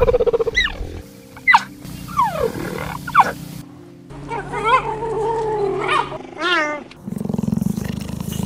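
Cheetah calling: a run of short, high chirps that glide in pitch over the first three seconds, a longer wavering call in the middle, then a low, fast-pulsing sound in the last second and a half.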